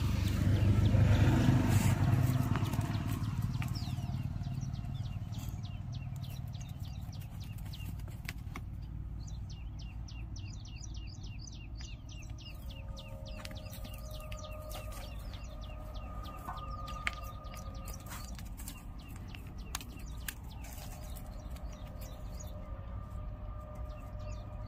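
Small birds chirping in quick, repeated short notes over a steady low rumble, after a louder low noise in the first couple of seconds.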